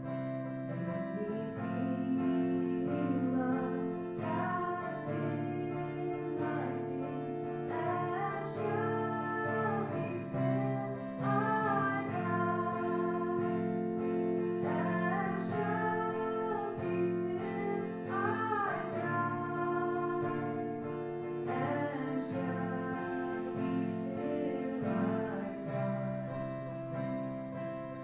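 Worship music: guitar chords with a voice singing a melody over them.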